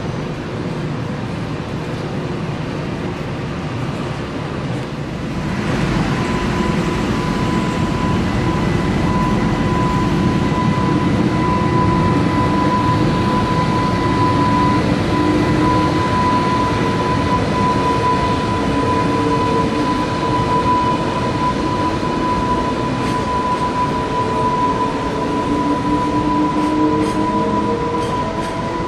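Freight train hauled by an EH500 electric locomotive running by, a steady rail rumble that grows louder about five seconds in, with a steady high whine over it from then on.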